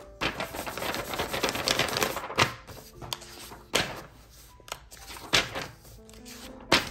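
Rustling, crackly handling noise for about two seconds, then four sharp knocks about a second and a half apart, over soft background music.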